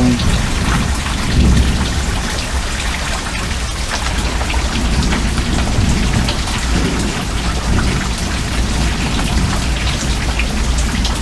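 Steady thunderstorm rain pouring down, with a dense patter of drops over a low rumble.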